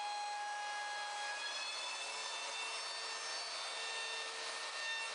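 Ryobi trim router running at speed with a high whine, chamfering the edge of a wooden board; its pitch shifts slightly about a second and a half in.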